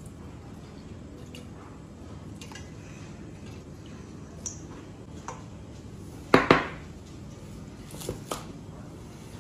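Kitchen prep sounds over a steady hiss: a few faint clicks, then two sharp knocks in quick succession about six and a half seconds in. Two lighter chef's-knife strokes on the cutting board follow near the end.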